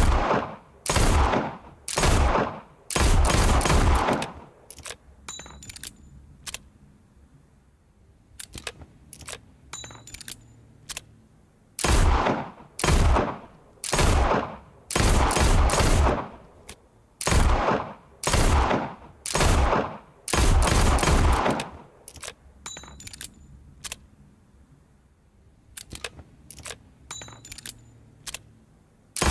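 Revolver gunshots as a sound effect: a few shots near the start, a quiet stretch, then a run of about eight shots about a second apart, each dying away in a short echoing tail. Faint mechanical clicks sound in the quiet stretches between the groups of shots.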